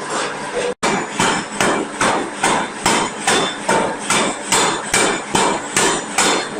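Forging hammer blows on metal, a fast steady series of ringing strikes at about two and a half a second, following a brief machine noise that cuts off abruptly under a second in.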